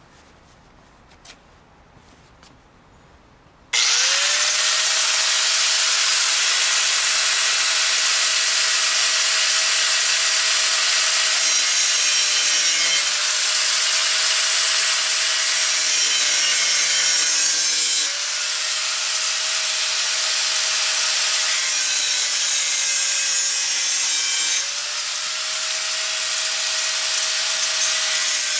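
Electric angle grinder with a cut-off disc cutting into a chair frame. It starts suddenly about four seconds in and runs steadily as a harsh grinding hiss over a motor whine that sags slightly where the disc bites, and it drops a little in level twice.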